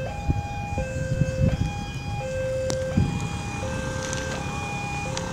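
Railway level-crossing warning alarm sounding a steady two-tone hi-lo pattern, each note held for under a second, signalling that a train is approaching. Low road and wind noise runs underneath, with a few sharp knocks.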